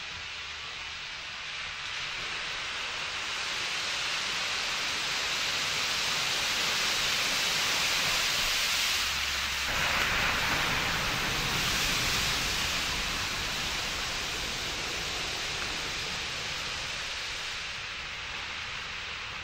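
Rushing spray of water thrown up by a 4x4's tyres ploughing through a shallow flooded channel. It builds over the first few seconds, grows heavier with a deeper rumble about ten seconds in, then slowly fades.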